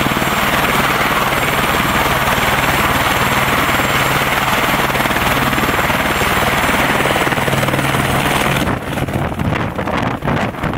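Helicopter running on the ground close by: a steady low rotor hum with a thin high turbine whine. About nine seconds in, the rotor downwash blasts the microphone and the sound breaks into gusty wind buffeting as the helicopter powers up to lift off.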